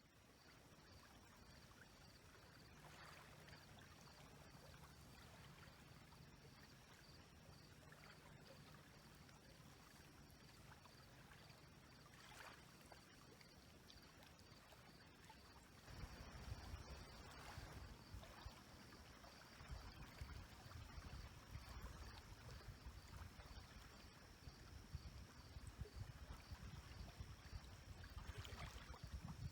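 Faint Lake Huron waves lapping and splashing on the shore, with a low rumble that grows louder about halfway through.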